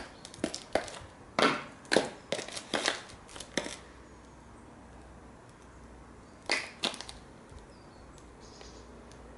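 Stiletto-heeled patent sandals clicking on concrete paving slabs as the wearer walks away, about two to three sharp heel strikes a second for the first few seconds. They stop, then two more heel clicks come close together a little past the middle.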